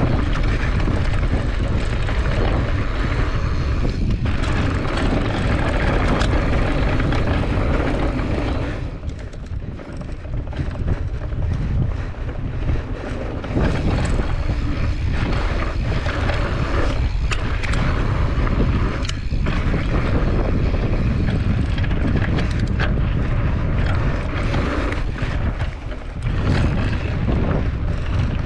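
Wind buffeting the camera microphone on a mountain bike riding down a rocky dirt singletrack, with scattered knocks and rattles of the bike over stones. The noise eases briefly about nine seconds in, then picks up again.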